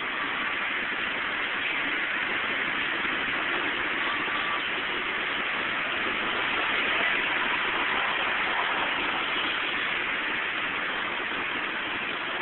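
Heavy rain pouring down in a dense, steady hiss, mixed with traffic passing on the wet road.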